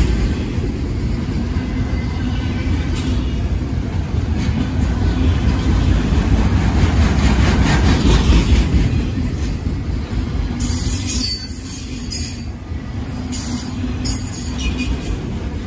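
Freight train of autorack cars rolling past close by: a steady low rumble of steel wheels on rail, easing slightly about two-thirds of the way through, with faint thin wheel squeals coming and going.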